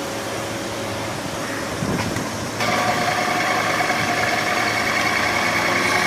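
Electric motor drive of a machine moving its shaft: a steady hum, a short knock, then about two and a half seconds in a louder, steady motor whine starts as the shaft travels.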